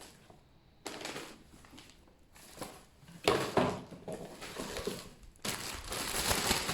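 Packaging being rummaged through, crinkling and rustling in several short bursts and a longer stretch near the end.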